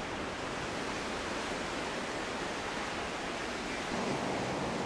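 Steady rushing noise of a CRH high-speed train running through snow, growing a little louder about four seconds in.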